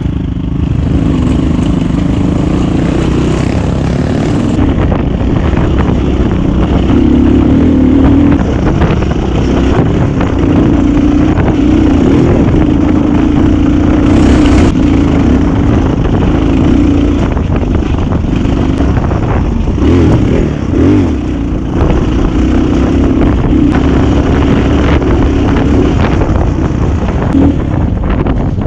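GPX 250 motorcycle engine running while riding, its pitch holding fairly steady with small rises and dips.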